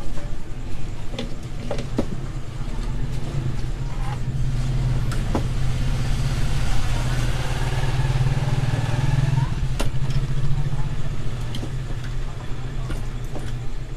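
A few clicks and knocks as a CRT TV circuit board and its wires are handled, over a steady low rumble that swells between about six and ten seconds in.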